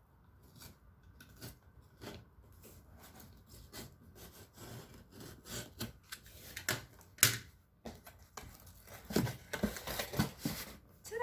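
A blade cutting and scraping at the tape and stiff cardboard of a shipping box, in irregular scrapes and clicks, with one sharp loud click about seven seconds in.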